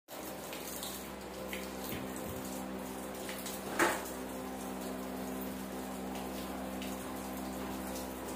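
Water spraying steadily from a garden hose and splashing onto rubber floor mats, over a steady low hum. One short, louder sound stands out about four seconds in.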